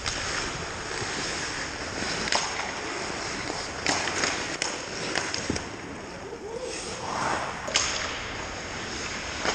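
Ice hockey play at the rink: a steady scrape and hiss of skates on ice, broken by several sharp clacks of sticks striking the puck, the loudest near the end.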